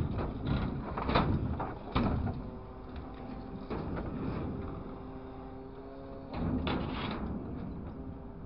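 Hydraulic scrap grapple on a material handler working a steel plate. Several metal clanks and scrapes come in the first two seconds, over the steady hum of the machine's engine and hydraulics. A louder surge of noise about six seconds in comes as the plate is lifted.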